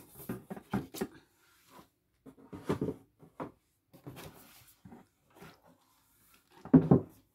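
Scattered short knocks, taps and rustles from handling flat-pack furniture panels and hardware during assembly, the loudest near the end.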